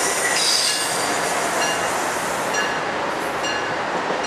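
Electric train running on the rails with steady rolling noise and wheel squeal, broken by short high-pitched pings about once a second.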